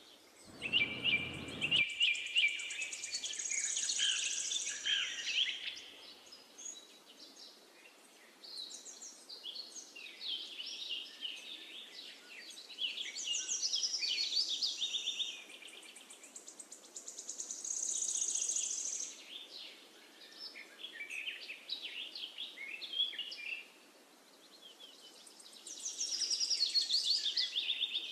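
Songbirds singing, with phrases of rapid chirps and trills every few seconds over a faint steady outdoor hiss.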